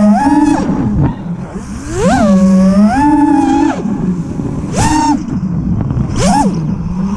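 Motors of a 7-inch FPV quadcopter (2508 1200 kV brushless motors with three-blade 7-inch props), heard from the camera on board and whining with a pitch that rises and falls with the throttle. The whine drops off for about a second near the start, climbs back and holds, then two short, sharp throttle punches spike the pitch near the end.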